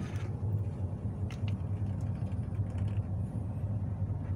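A steady low machinery hum, with two faint clicks about a second and a half in from the control-panel switches being pressed. The lifeboat's engine has not yet been started.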